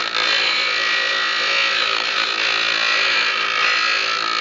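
A power tool running steadily, with a dense, harsh noise.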